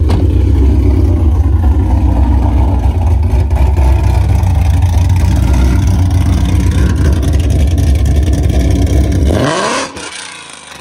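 Ford Mustang GT's 5.0 L V8 idling loudly through catless headers, an X-pipe and a Roush exhaust: a steady, deep rumble. Near the end a brief rising sweep is heard and the rumble drops away sharply.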